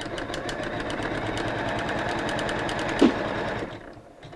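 Computerised embroidery machine stitching the tack-down stitch of an appliqué: a steady run of rapid, even needle strokes. About three seconds in there is a brief louder sound, then the stitching winds down and the machine stops at the end of that stitch step.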